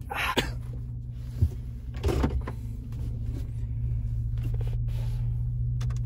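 Car engine running, heard from inside the cabin as a steady low hum, with a few short rustling sounds and a sharp click in the first couple of seconds.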